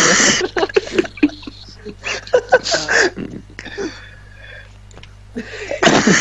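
Indistinct voices of several people on a group voice call, with loud rushing bursts of noise at the start and again near the end, and a quieter lull after the middle.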